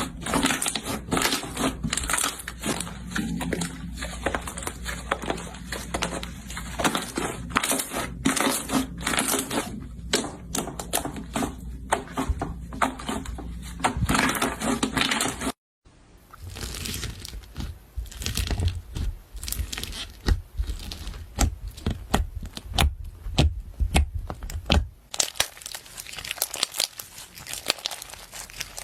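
Slime being squeezed and pressed by hand, giving dense, irregular crackling and popping clicks. The sound cuts out for a moment about halfway through, then the crackling goes on with deeper squelching pops.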